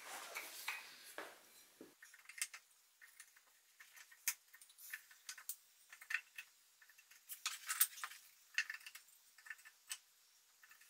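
Wooden top bars of a Warre beehive box clacking lightly as they are set into the slots along the top of the box: faint, scattered, irregular knocks and clicks of wood on wood.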